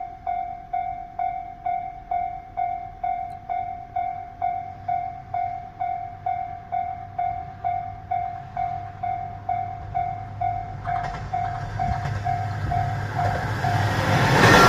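Japanese level-crossing warning bell ringing in an even, pitched strike about twice a second, while a diesel railcar approaches from about eleven seconds in and grows steadily louder until it drowns the bell, loudest near the end as it passes the crossing.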